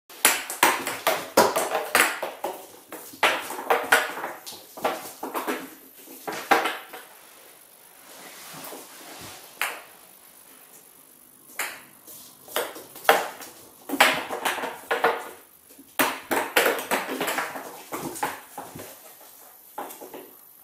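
A kitten batting a small toy ball across a hard floor: flurries of quick, irregular clicks and clatters as the ball is struck and bounces, easing off for a few seconds in the middle before picking up again.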